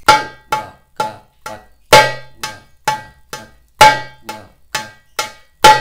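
Darbuka struck with the left ring finger in an even stream of crisp, ringing strokes, about two a second, every fourth stroke accented louder: a finger-loosening drill in four-stroke groups with the accent on the first.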